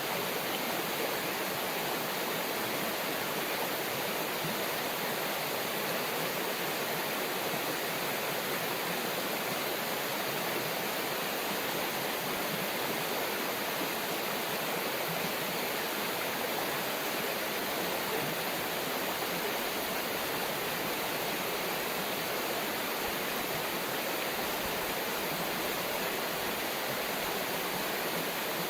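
A river's water rushing over rocks, a steady, even hiss with no change.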